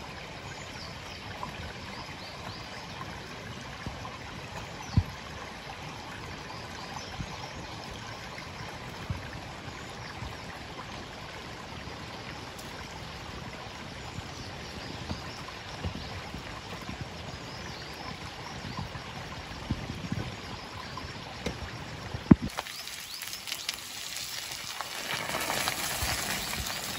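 Footsteps on a steep path of loose stones and shale, with occasional knocks, over a steady rush of running water. The rushing grows louder near the end.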